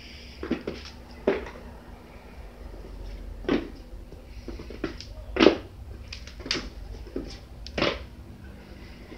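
Kitten jumping and landing on a hardwood floor: about ten sharp, irregular thumps and paw knocks, the loudest about five and a half seconds in.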